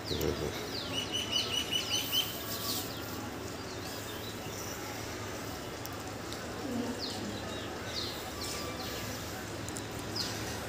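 Birds calling: a quick run of short, evenly spaced chirps about a second in, with short downward-sliding calls scattered through.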